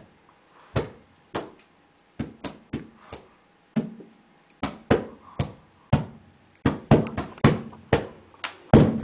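A string of short, sharp thumps at an irregular pace, coming closer together in the second half.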